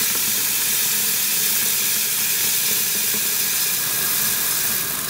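Kitchen tap running in a steady stream into a stoneware bowl in a stainless steel sink: a constant rush and splash of water as the bowl fills to the brim.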